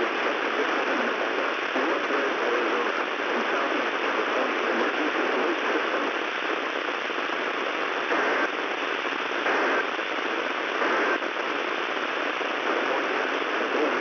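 Steady radio static from an FM receiver tuned to a weak NOAA Weather Radio channel, with no clear speech coming through.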